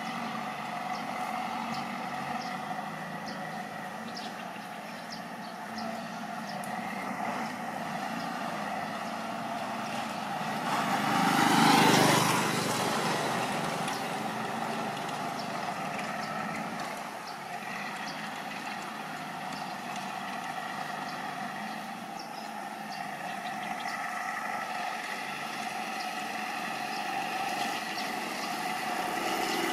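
A steady engine drone runs throughout, and a vehicle passes close by about twelve seconds in, swelling loud and then fading.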